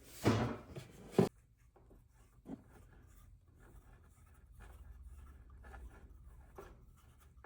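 A short scrape, a sharp click just after a second in and a lighter knock, then faint rubbing and small clicks: small pipe fittings being handled and put together by hand.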